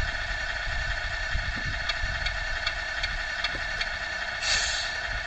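Simulated diesel truck engine idling steadily, played through the small speaker of a Tamiya MFU-01 multi-function sound unit in a Globe Liner model truck. A short hiss of air sounds about four and a half seconds in.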